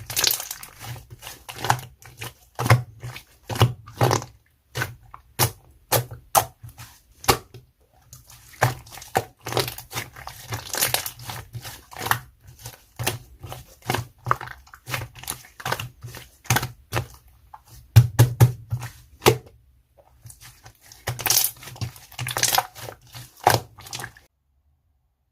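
Hands squeezing, poking and stretching a marbled slime, making a quick run of sharp clicks, pops and squelches with two short lulls. The sound stops a second before the end.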